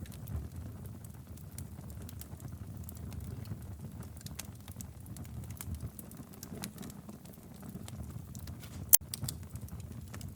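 Wood fire burning in a fireplace: scattered crackles over a low, steady rush of the flames, with one sharp, loud pop about nine seconds in.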